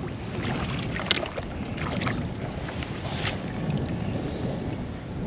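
Wind buffeting the microphone over water lapping around a small boat, with a few short clicks.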